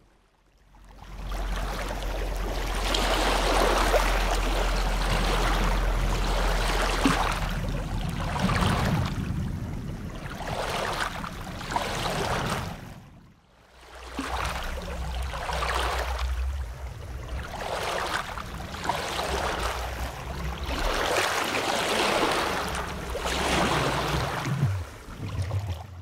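Ocean waves heard underwater: a low rumble and a rushing wash that swell and ebb about every two seconds. The sound fades out about halfway through and comes straight back in.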